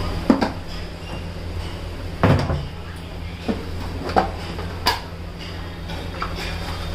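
Plastic spice box being opened and handled, giving about half a dozen short clicks and knocks over a steady low hum.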